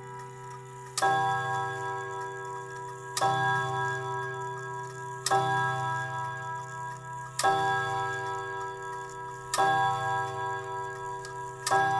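Haller mantel chime clock striking six o'clock on its gong: six strokes about two seconds apart, each ringing on with a deep hum.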